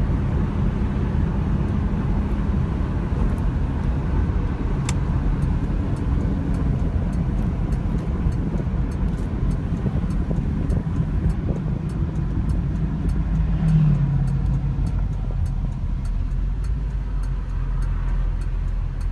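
2002 Chevrolet Camaro SS's 5.7-litre LS1 V8 at a low-rpm cruise, heard from inside the cabin with tyre and road noise. The engine note swells briefly about fourteen seconds in.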